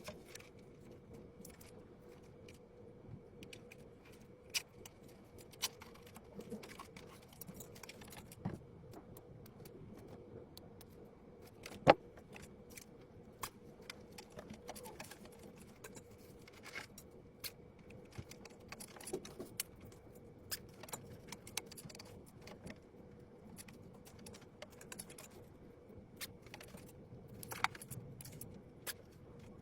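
Scattered light clicks and taps of small hard parts being handled while a PC is assembled, with one sharper click about twelve seconds in, over a faint steady hum.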